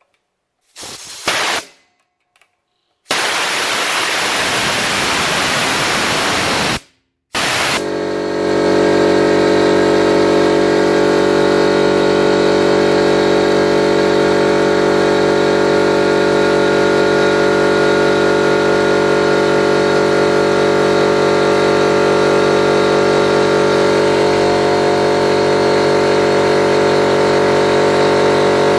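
Compressed air blasting out with a loud hiss for about three and a half seconds, then a 50-litre air compressor's motor and pump starting about eight seconds in and running steadily with a constant hum.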